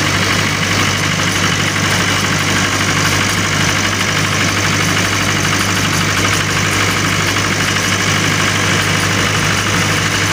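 Mahindra 475 tractor's diesel engine running steadily while the tractor drives along, heard from on board just behind the upright exhaust stack.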